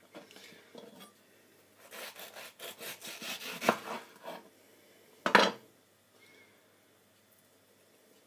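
A kitchen knife slicing through mango on a wooden cutting board: a run of quick sawing strokes, about five a second, for two to three seconds. Shortly after, one loud sharp knock on the board.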